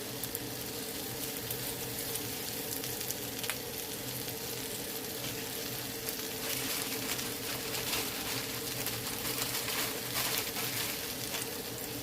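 Cheese-topped beef burger patties sizzling as they finish cooking: a steady hiss with scattered crackles that pick up about halfway through.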